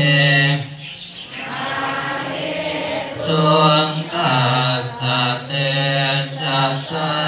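Thai Buddhist evening chanting (tham wat yen): a group of monks and lay devotees chanting Pali verses in unison on one steady pitch, phrase by phrase with short breaks.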